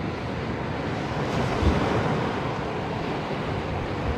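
Sea waves breaking and washing onto the beach, a steady wash of noise, with wind blowing on the microphone and giving a few low thumps.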